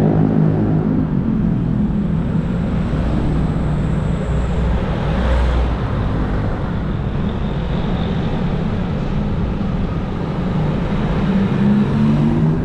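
Steady street-traffic noise from motorbikes and cars, mixed with a low wind rumble on a bike-mounted action camera while riding.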